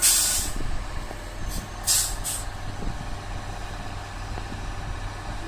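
ROPA sugar beet machine's diesel engine running steadily, with a sharp hiss of released compressed air at the start lasting about half a second and three shorter hisses about two seconds in.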